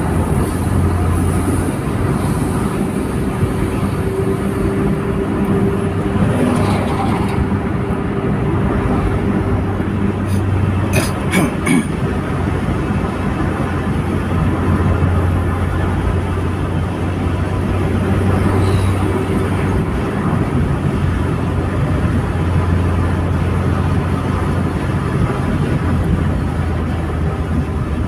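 Steady low road and engine rumble inside a car's cabin while driving along a highway, with a few quick clicks about eleven seconds in.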